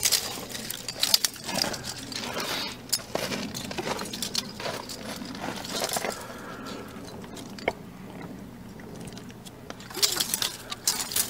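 Handling noise from small 3D-printed plastic sample tabs being shuffled in the hand: scattered clicks and rustles, busiest in the first few seconds and again near the end.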